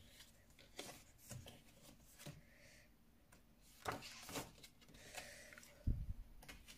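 Glossy pages of an album photobook being turned by hand: a series of faint paper rustles and flicks, with a dull thump near the end as the book is handled.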